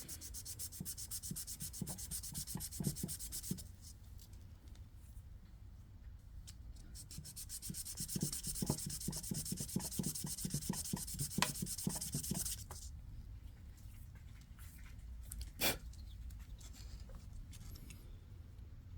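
Plastic shifter insert being hand-sanded on 600-grit sandpaper, rubbed back and forth in quick strokes, in two spells with a quieter gap between. A single sharp click comes about two-thirds through.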